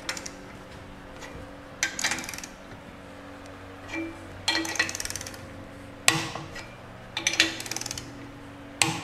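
Ratchet of a click-type torque wrench clicking in about five short bursts as the cylinder-liner hold-down clamp bolts are tightened on a cast-iron engine block, each burst starting with a sharp click.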